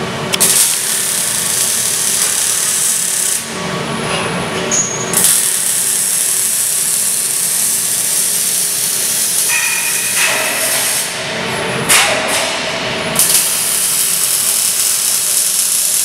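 Robotic arc welding with an OTC Daihen AII V6L welding robot: the welding arc makes a steady crackling hiss. The arc stops twice for a second or two, about four seconds in and again past the eleven-second mark, and then picks up again.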